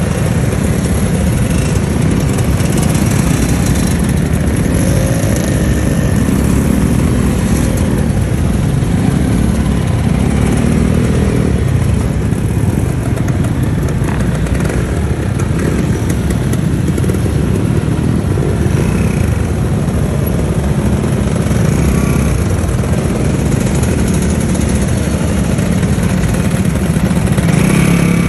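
A long procession of motor scooters, Vespas among them, riding past one after another. Their small engines run in a steady, continuous mass of sound with no break.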